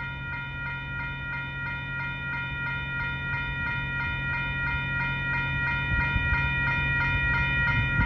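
Railroad grade-crossing warning bells ringing continuously at about four strikes a second, with a low steady hum underneath.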